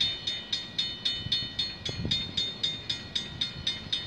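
Railway level-crossing warning bell ringing steadily, about four strikes a second, signalling an approaching train.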